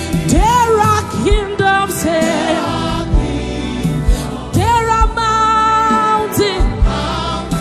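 Christian worship song: a sung melody with long held notes over an instrumental backing with a steady beat.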